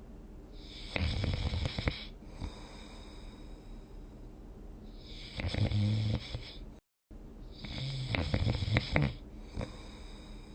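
A sleeping person snoring: three rasping snores a few seconds apart, each with a low rattle under airy breath noise. The sound cuts out briefly just before the third snore.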